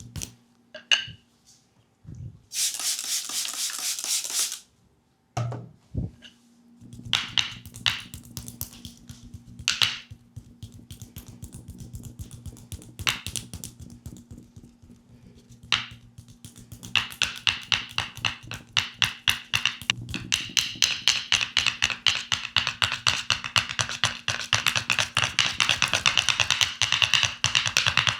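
Percussive massage strokes on a leg. Scattered slaps and taps and a brief rushing rub come first; from about halfway through, a fast, even tapping runs at roughly four strikes a second.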